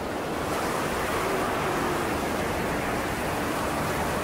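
Strong wind blowing steadily, a storm sound effect.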